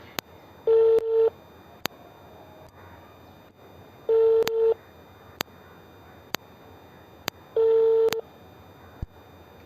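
Phone ringback tone heard over a phone's speaker: a short steady beep repeating about every three and a half seconds while the call goes unanswered, with faint sharp clicks between the beeps.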